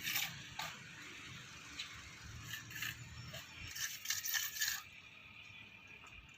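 Irregular clinks, knocks and scrapes of construction work, with a quick run of sharper clinks about four seconds in, then quieter.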